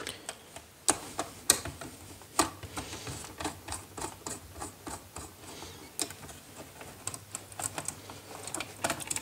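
Light, irregular clicks and scrapes of a screwdriver and fingers working a red wire into a switch's screw terminal on a plastic switchboard, a few clicks sharper than the rest.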